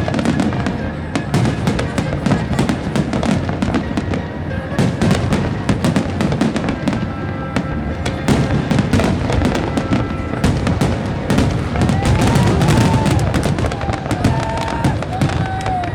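Fireworks display: a dense, continuous run of bangs, booms and crackles from many shells bursting one after another, with a heavy low rumble under them.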